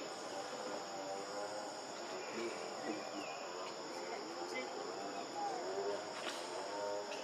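Steady high-pitched chorus of insects, unbroken throughout, with faint voices underneath.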